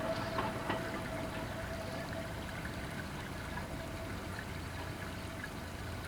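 Old Ohmi Railway electric train with nose-suspended motors running away into the distance: a steady whine slowly fading over a low rumble.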